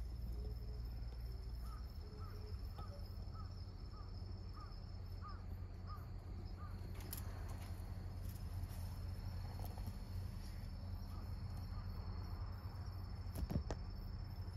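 Insects trilling in a steady, high, unbroken tone, joined in the first half by a run of short chirps repeating about three times a second. A single sharp snap near the end.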